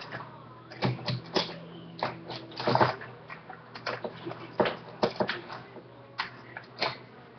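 Scattered rustles and light knocks of hands handling a pencil case and a binder while fitting the case into the binder.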